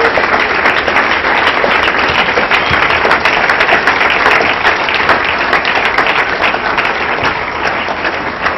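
A roomful of people applauding, a dense steady patter of many hands clapping that eases slightly near the end.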